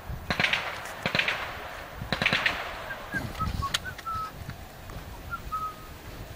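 Suppressed M11/9 submachine gun, slowed by a TASK-style slow-fire conversion and fitted with a Bowers CAC-45 suppressor, firing three short full-auto bursts about a second apart in the first two and a half seconds. Short high chirps follow a little later.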